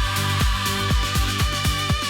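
Instrumental electronic dance music with no vocals: a steady kick-drum beat of about two thumps a second under sustained bass and a held synth note.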